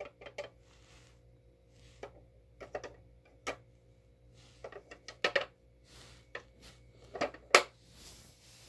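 Hard plastic dog puzzle feeder clicking and clattering as a dog noses and knocks at it, with irregular knocks, the loudest about seven and a half seconds in.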